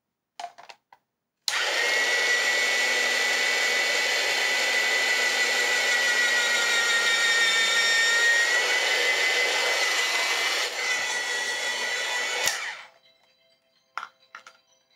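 Presto Salad Shooter's electric motor running with a steady high whine while mushrooms are pressed into its slicing cone. It starts suddenly about a second and a half in, eases slightly near the end, then stops abruptly.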